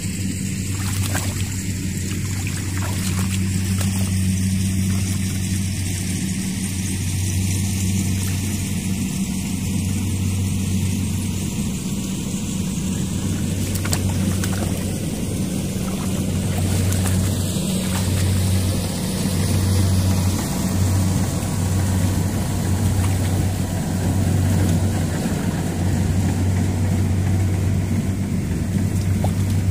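An engine running steadily with a low hum, over a continuous hiss.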